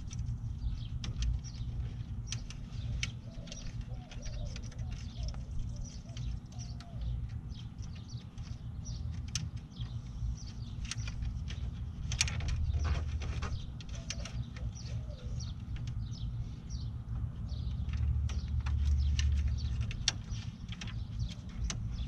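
Scattered light clicks and taps of hands handling a headlight assembly and its mounting parts in a vehicle's headlight opening, a little busier about halfway through and again near the end, over a steady low rumble.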